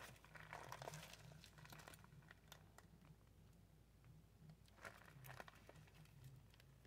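Faint crinkling of a clear plastic sleeve around a sheet of nail stickers as it is handled, a little louder about a second in and again near five seconds; otherwise near silence.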